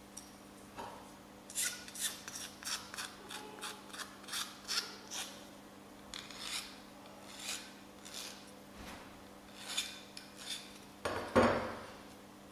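Hand file rasping across the edge of a thin aluminium piece clamped in a bench vise, rounding its corners: a quick run of strokes about three a second, then slower, scattered strokes. Near the end comes one louder clunk.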